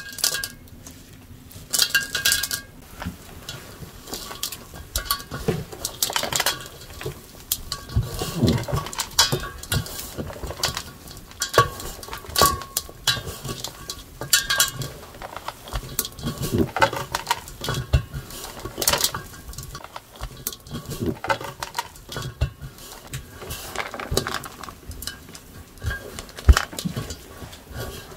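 Hands kneading a crumbly mixture of chopped dried fruit and nuts in a large enamel basin, with irregular knocks, clinks and scrapes against the basin.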